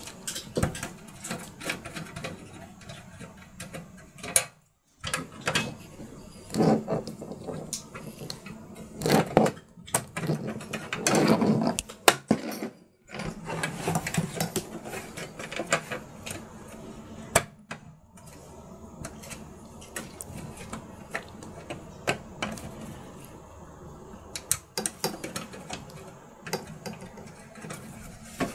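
Power-supply cables and plastic case parts being handled and routed inside a small computer case: scattered small clicks and rattles with a few louder rustling bursts.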